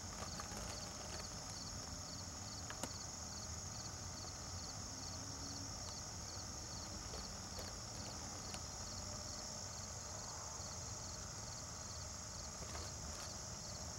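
Steady high-pitched chorus of late-summer insects in the field, with one insect chirping in quick, even pulses for the first couple of seconds. A low rumble of wind or camcorder handling and a few faint clicks sit underneath.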